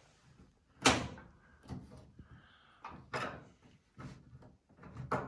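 Knocks and clunks from a dryer's metal parts being worked loose by hand: a sharp knock about a second in, then several smaller clunks.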